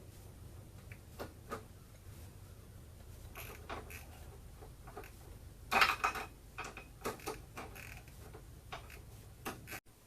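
Scattered metallic clinks and knocks of metal parts being handled, with the loudest cluster about six seconds in, over a faint low steady hum.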